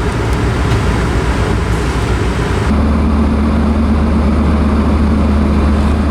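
Steady road and engine noise inside a moving car, with a low engine hum that strengthens about two and a half seconds in.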